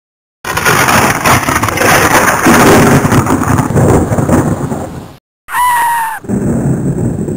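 A long, loud rumbling crackle runs for about five seconds and cuts off abruptly. A short, shrill cartoon scream follows, falling slightly in pitch, and then the rumbling noise returns.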